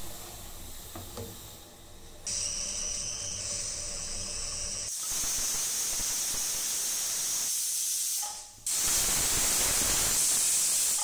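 Pressure cooker whistle venting steam at full pressure: a softer hiss starts about two seconds in, then two long, loud steam whistles of about three seconds each, separated by a short break. Two whistles mark the biryani as cooked.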